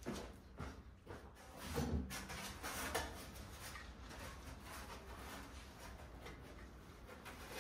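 A few knocks and scrapes as a sheet of foam insulation board is lifted and handled, the loudest about two and three seconds in, followed by faint rustling as the board is held and pressed against the wall.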